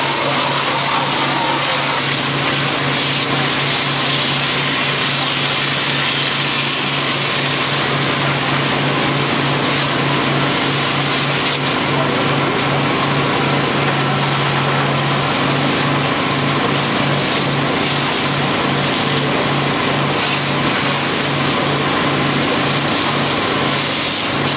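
Fire hose water jet spraying into a burning building, a steady loud hissing rush of water and steam, over a low engine drone that begins to pulse about twice a second about halfway through.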